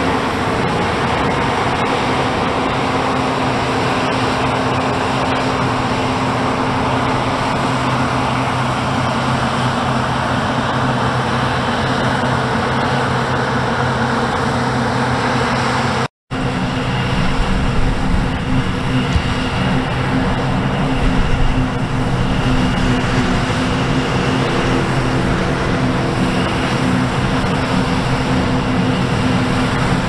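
Claas Lexion combine harvesters at work in a grain crop: a steady drone of the engine and threshing gear, with a few steady engine tones. The sound breaks off for a moment about halfway, then the same kind of drone carries on.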